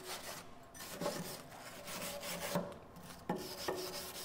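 A hand tool scraping back and forth over a freshly welded steel radiator bracket, in several rough strokes with short pauses between them.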